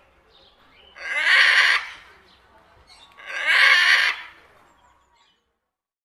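Macaw giving two loud, harsh squawks, each about a second long and about two seconds apart.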